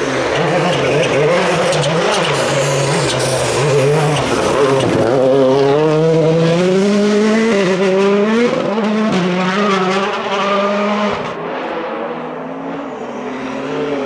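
Hyundai i20 WRC rally car's turbocharged four-cylinder engine at full throttle, pulling away through the gears: the pitch climbs, drops briefly at each upshift, and climbs again. About eleven seconds in it gives way abruptly to a quieter, steadier engine of another rally car.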